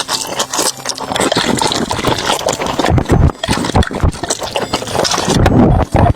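Close-miked eating of Korean army stew (budae-jjigae): wet slurping and chewing with many small smacking clicks and a couple of heavier mouthfuls, about three seconds and five and a half seconds in.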